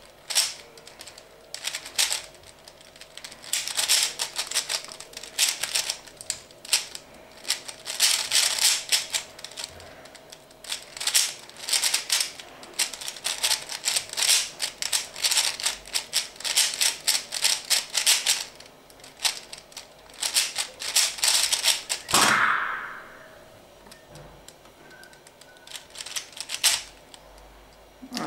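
Dayan Lingyun 3x3 speed cube, modded with torpedo pieces, turned fast in a speedsolve: rapid runs of plastic clicking and clacking broken by short pauses. About 22 seconds in the turning stops with a single thump as the hands come down on the timer.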